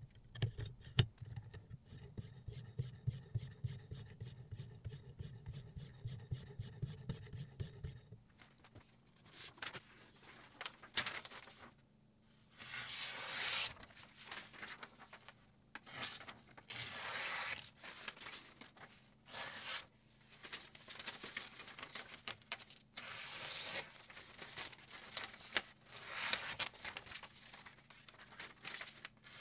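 A whetstone on a guided-rod knife sharpener rubbing along a kitchen knife's edge in quick strokes, sped up, for about eight seconds. Then the sharpened blade slicing through a sheet of paper in a series of short rasping cuts, a test of how keen the edge is.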